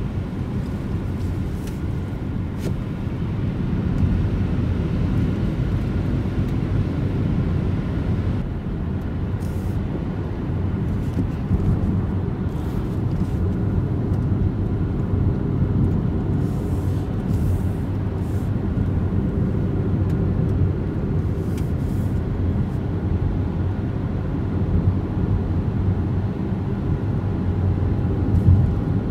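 Opel Mokka-e electric car driving at a steady speed: continuous road and tyre rumble with wind noise, and a faint steady whine above it.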